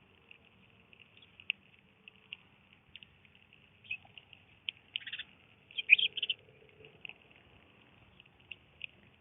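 Small birds chirping: a steady faint high twitter with sharp short chirps at irregular intervals, a louder cluster of chirps about five to six seconds in.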